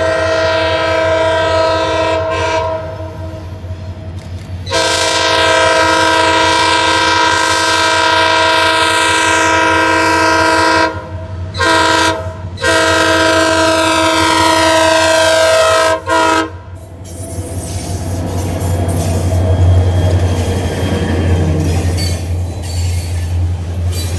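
Diesel locomotive's multi-chime air horn sounding the grade-crossing signal: the end of a long blast, then a long, a short and a final long blast. The locomotive then passes close by with a low engine rumble and the clatter of wheels on rails as the hopper cars roll through.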